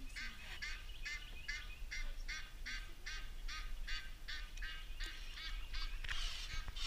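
Geese honking in a rapid, steady series of calls, about three to four a second, with a short rush of noise near the end.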